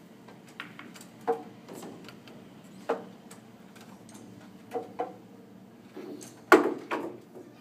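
Sharp clicks and knocks of pool play: a cue strikes the cue ball and billiard balls click together, about six hits spread out, the loudest near the end.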